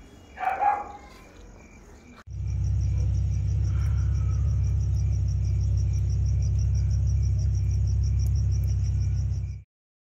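Crickets chirping in a fast, even pulsing trill. About two seconds in, a loud steady low rumble sets in beneath them, and both cut off suddenly near the end.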